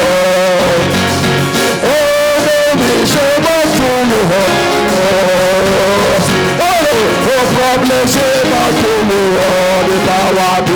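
Live church band music with guitar and a singing voice, played steadily without a break.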